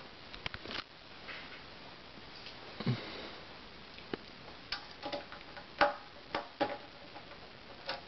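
A dozen or so irregular light clicks and taps of a small hand screwdriver working the hard drive caddy screw on a Dell Dimension 2400's metal case, with the case being handled.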